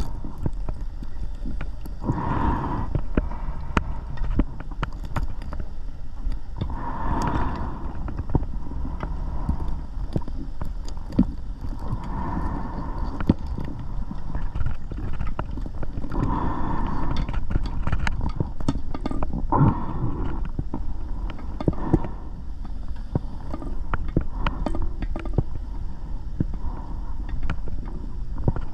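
Scuba diver breathing underwater, heard through the camera housing: a rush of breath every four to five seconds over a steady crackle of water noise.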